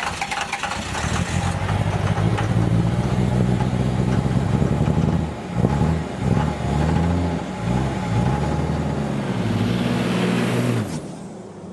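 A motor vehicle's engine running and revving, its pitch rising and falling over several seconds, with a short dip about halfway through. It stops shortly before the end.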